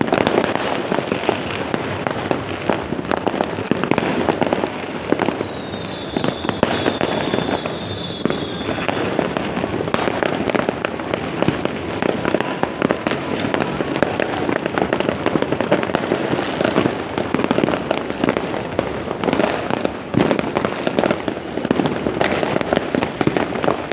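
Dense, continuous barrage of fireworks and firecrackers, many overlapping pops and bangs crackling without pause. A whistling rocket is heard briefly about six seconds in.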